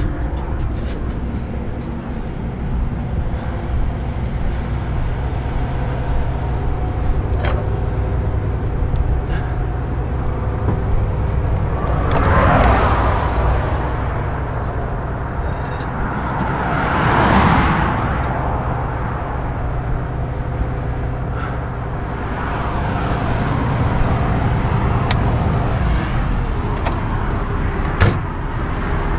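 Heavy truck engine idling steadily on the highway shoulder, with two vehicles passing at speed about 12 and 17 seconds in, each swelling up and fading away. A few light clicks and knocks sound over it.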